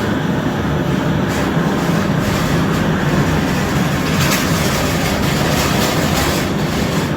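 Steady low rumble of a moving vehicle, with faint scattered crackle near the end.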